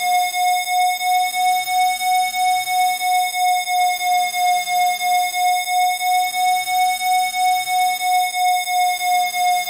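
Electronic Rife-frequency tone at 727 Hz, held steady in pitch and pulsing in loudness about three times a second, with fainter higher overtones.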